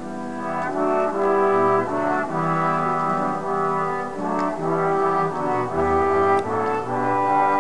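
Brass ensemble of trumpets, horns and trombones playing a succession of held chords, each lasting about half a second to a second.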